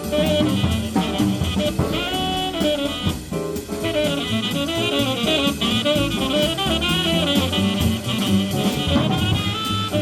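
Live jazz quartet playing: a tenor saxophone plays fast, running melodic lines over piano, double bass and drum kit.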